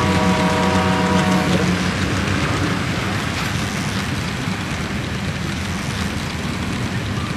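HO-scale model passenger train with EMD F-unit diesels passing close by. A multi-note horn chord sounds and stops about a second and a half in, leaving the steady rumble of the train running past, which eases slightly near the end.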